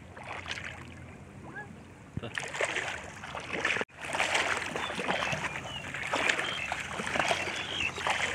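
Shallow water splashing and sloshing as people wade and work in it, getting louder about two seconds in, with a brief dropout just before four seconds.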